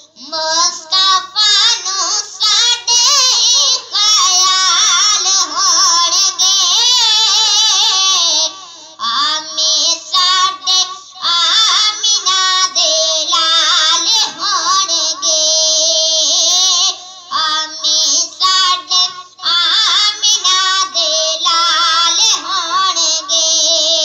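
A boy singing a naat solo into a handheld microphone, in long melismatic phrases with short breaks for breath.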